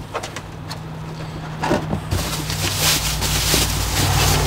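A steady low motor hum, like a vehicle engine running nearby, grows louder about two seconds in and is joined by a rushing hiss with light rustling.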